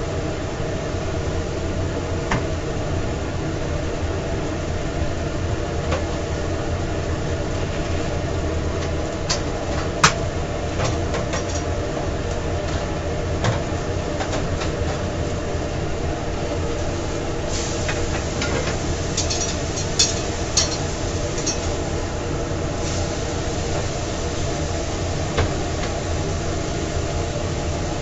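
Steady mechanical drone of a food trailer's kitchen equipment with a low hum. A few sharp clicks and clanks of cookware break through it, the loudest about ten and twenty seconds in.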